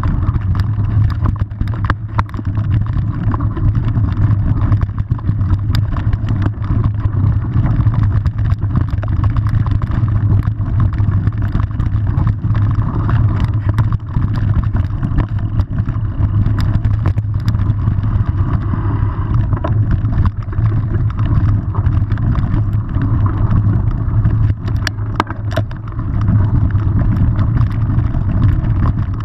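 Mountain bike ridden over a rough dirt trail, heard from a camera mounted on the bike: a loud steady rumble with many quick clicks and rattles as the bike jolts over the ground.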